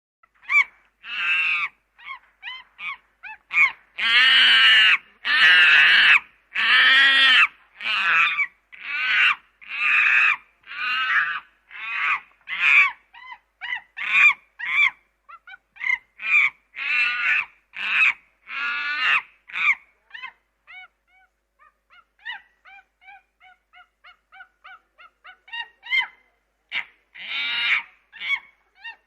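Bird honking calls repeated over and over: loud honks for most of the first twenty seconds, then softer, quicker calls, with a few loud honks again near the end.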